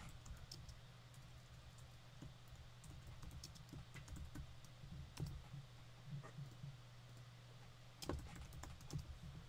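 Typing on a computer keyboard: faint, scattered key clicks over a low steady hum, with a quicker run of clicks about eight seconds in.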